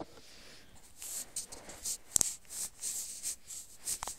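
Cardboard jigsaw puzzle pieces being handled and fitted together: a scatter of light clicks and rustles, the sharpest click about two seconds in.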